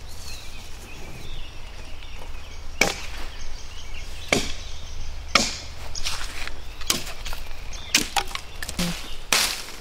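Axe chopping into the trunk of a felled tree: a run of sharp wooden strikes starting about three seconds in, roughly one every second or so.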